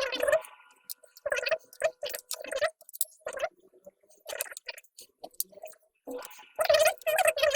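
Irregular crinkling and rustling as a laptop SSD is handled and its plastic sticker is peeled off, many short bursts of handling noise.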